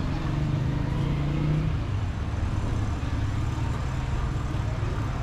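Street traffic: a motor vehicle engine running close by, its pitch rising a little in the first second and a half and then holding steady, over the general hum of city traffic.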